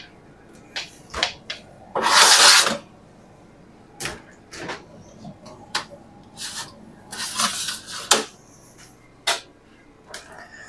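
Handling noises: scattered sharp clicks and knocks of things being opened, shut and set down, with one loud brief rustle about two seconds in.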